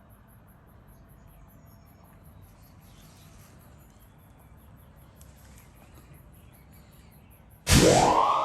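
Crickets chirping in a steady, even rhythm of about four short high chirps a second over a faint low rumble. Near the end a loud electronic tone cuts in suddenly, sweeping up in pitch and then holding as music begins.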